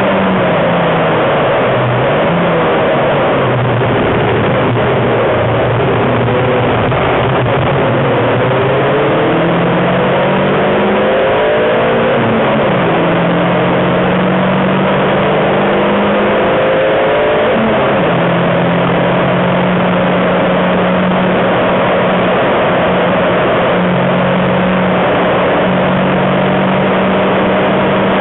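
Renault Twingo RS's 1.6-litre four-cylinder engine heard from inside the cabin at track speed: the engine note drops in steps early on as the car slows, then climbs through the gears with shifts about 12 and 17 seconds in, and holds high for the rest. A constant loud rush of road and wind noise runs underneath.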